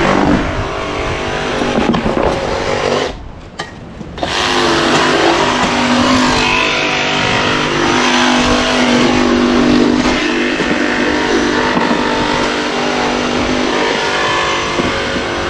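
Gas-powered cut-off saw running at high revs while cutting, dropping off sharply about three seconds in and revving back up a second later.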